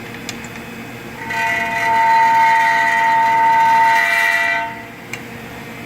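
Loud, steady metallic squeal from a Mazda 6's right front wheel as it is turned: a rock jammed between the brake rotor and the splash shield scraping the turning rotor. It starts about a second in and stops after about three and a half seconds.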